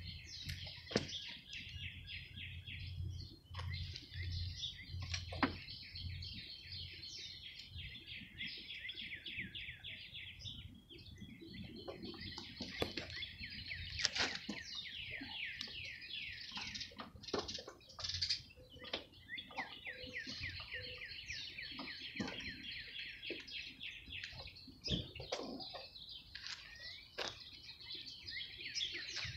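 Many small birds chirping continuously in quick repeated notes, with occasional sharp clicks and knocks.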